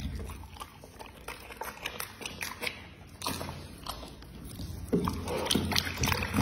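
A dog chewing raw meat taken from a hand, with many quick clicks and snaps of jaws and mouth, getting louder about five seconds in.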